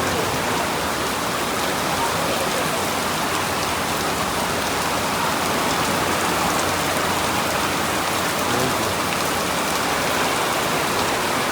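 Heavy rain pouring down steadily, a dense, even hiss of drops on the ground and standing water.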